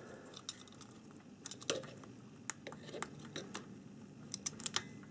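Faint, irregular clicks and ticks of a small plastic panel-mount fuse holder and its wire leads being handled, as a cutter knife picks at the heat-shrink tubing over the solder tags.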